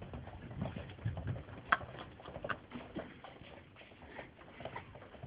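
Footsteps and shuffling on a hard corridor floor: uneven knocks and scuffs, with one sharp click about a second and a half in.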